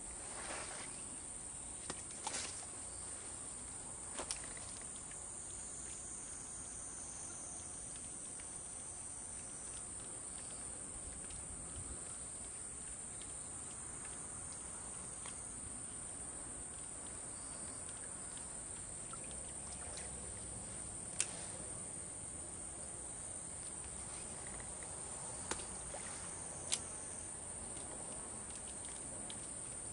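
Insects droning steadily at a high pitch, with a few sharp clicks or knocks scattered through it: a couple in the first few seconds and a few more in the last third.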